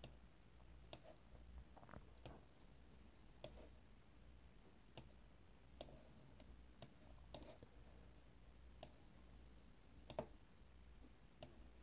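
About a dozen faint, irregular clicks of a computer mouse button as straight lines are placed in Microsoft Paint, over near silence.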